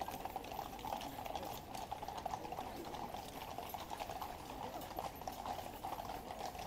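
Hooves of a mounted troop of Household Cavalry horses clip-clopping on the road at a brisk pace: an irregular clatter of many hoof strikes over a steady background hum.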